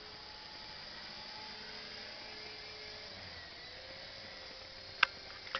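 Faint, steady hum of an Align T-Rex 450 SE electric RC helicopter's motor and rotor flying far off, its pitch drifting slightly. Two sharp clicks come near the end.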